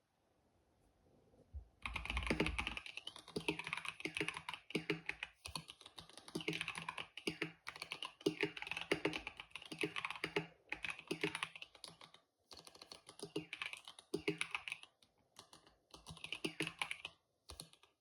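Typing on a KBD67 Lite mechanical keyboard with Boba U4T tactile switches and PBT keycaps: rapid key presses in runs of a second or two with short pauses, starting about two seconds in.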